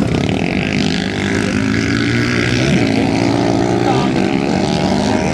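Modified racing quads' engines running hard, their pitch rising and falling as the riders accelerate and let off through the turns.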